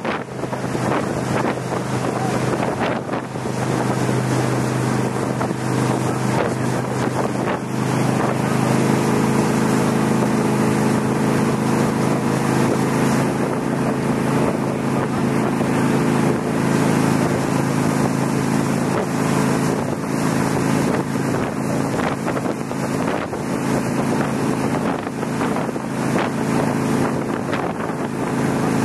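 Motorboat engine running steadily under way, with wind buffeting the microphone and water rushing past the hull. The engine note grows louder about eight seconds in.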